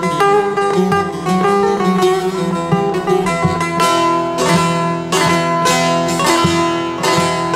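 Bağlama (Turkish long-necked lute) played with a plectrum: a fast picked folk melody over a steady low drone, with sharper strummed strokes from about four seconds in.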